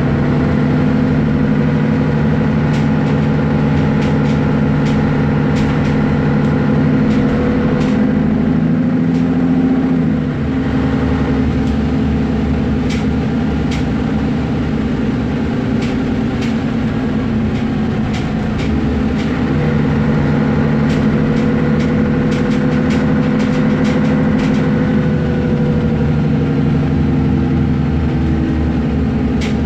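Mercedes-Benz Citaro O530G articulated bus driving, its engine running steadily. About ten seconds in, the engine note drops and goes a little quieter; it rises again around twenty seconds in. Short ticks and rattles come through at intervals.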